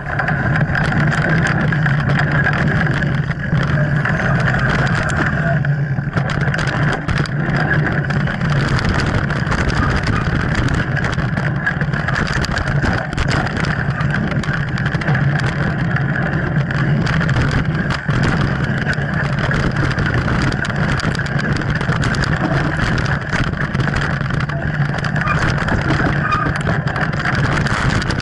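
Mountain bike riding fast down a dirt trail, heard from a camera mounted on the bike: a steady rush of wind on the microphone with constant rattling and knocks from the bike jolting over the ground.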